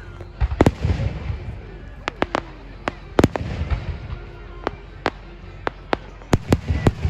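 Aerial fireworks going off: a dozen or so sharp bangs and cracks at irregular intervals, some in quick clusters, over a low rumble.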